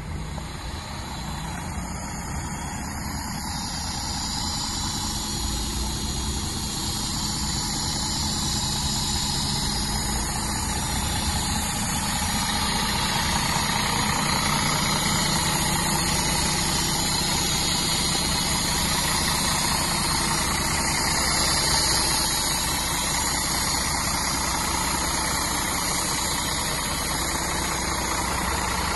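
Diesel engine of a Scania P380 street-sweeper truck idling steadily, getting gradually louder over the first dozen seconds.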